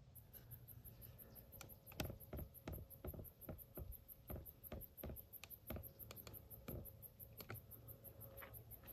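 Crickets chirping in a fast, steady high-pitched pulse, with a run of irregular close clicks and taps from about two seconds in until near the end.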